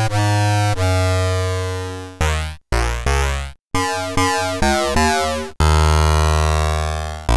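Synthesizer notes made by bit-twiddling: a sine wave's sample bits shifted and flipped into buzzy tones rich in overtones. A melodic run of notes, each starting sharply and fading, with the timbre shifting as the envelope changes the level before the bit manipulation, ending on a longer low note.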